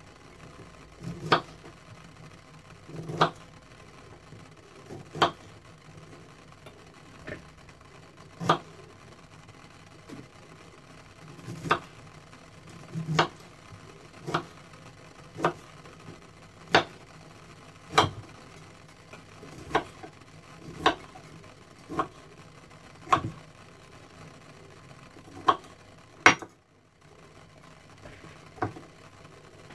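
Kitchen knife cutting broccoli florets on a wooden cutting board: a sharp knock each time the blade strikes the board, one every second or two at an uneven pace.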